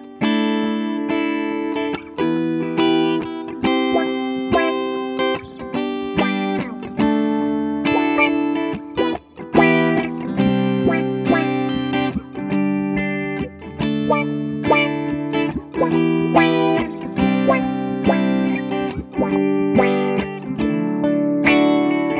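Two electric guitars jamming together, chords and single notes struck in a steady rhythm, played through the EarthQuaker Devices Spatial Delivery envelope filter (auto-wah).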